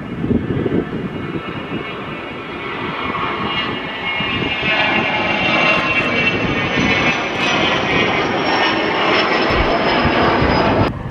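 Dassault Falcon business jet's engines at takeoff power during the takeoff roll and lift-off: a steady jet rush with a high whine that slowly falls in pitch, growing louder about halfway through. The sound cuts off abruptly near the end.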